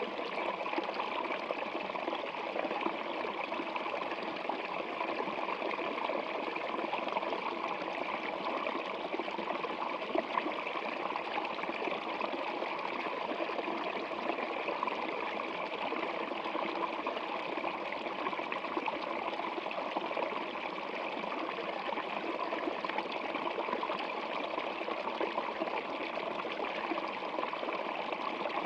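Steady, unbroken sound of running water.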